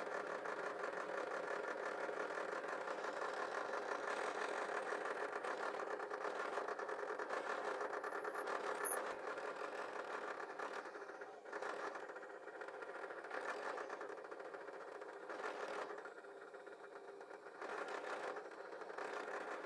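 Bench drill press running steadily as its bit bores into a block of wood. The sound dips and swells a few times.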